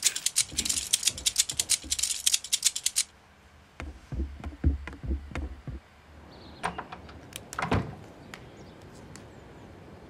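Rapid clatter of small hard objects, about ten sharp clicks a second for three seconds. Then a few soft knocks and scattered ticks.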